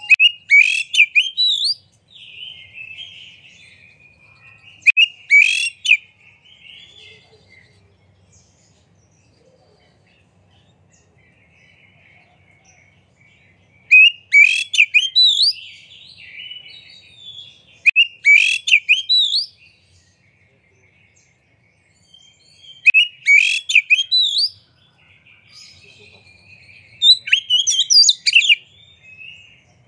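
Male oriental magpie-robin singing: loud, short phrases of quick whistled notes every few seconds, with softer twittering between them and a longer pause about a third of the way through. The bird is in full, energetic song ('gacor').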